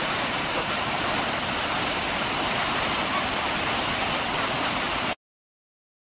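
Steady rush of the Rhine Falls pouring into churning whitewater at its base. It cuts off abruptly about five seconds in.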